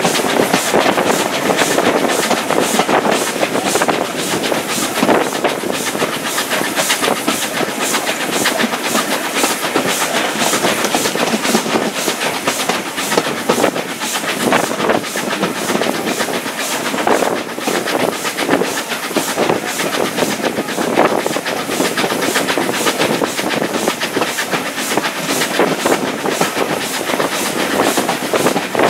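Heritage railway train running along the line, heard from a carriage window: steady rushing noise with a fast, regular clatter of wheels on the rails.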